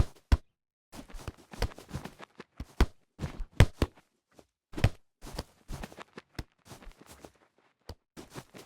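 Sound-effect American football hits: a series of sharp tackle and pad impacts, irregularly spaced, some single heavy thuds and some in quick clusters of smaller knocks.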